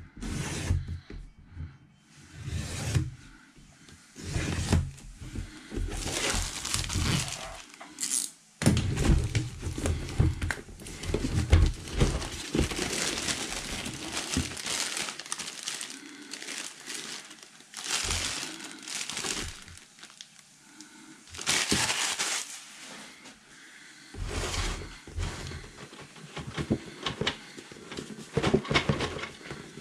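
Plastic shrink-wrap crinkling and tearing as it is slit and peeled off a cardboard model kit box, in irregular rustling bursts with small bumps of the box being handled.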